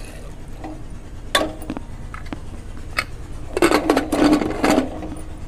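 Aluminium pressure cooker lid being fitted and closed. Two sharp metal clicks are followed, about three and a half seconds in, by a second or so of metal clattering and scraping with a ringing tone.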